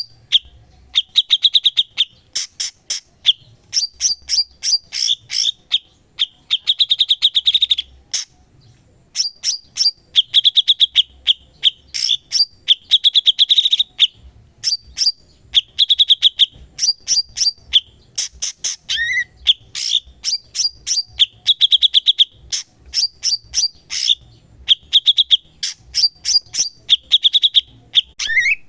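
A cucak cungkok songbird singing continuously: phrase after phrase of fast trills and sharp chirps, broken by short pauses, with an upward-sliding note now and then.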